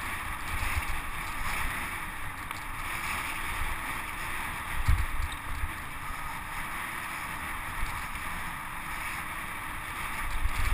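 Wind rushing over a mountain bike rider's camera microphone at speed, with low, irregular rumbling and knocks from the bike running over a rough dirt singletrack; one stronger knock about halfway through.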